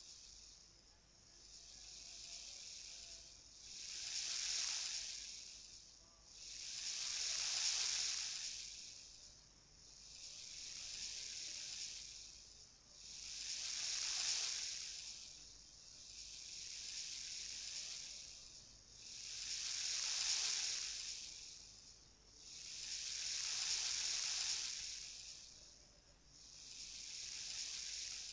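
Sea waves washing up on a beach, each wave swelling into a hiss and fading, about one every three seconds.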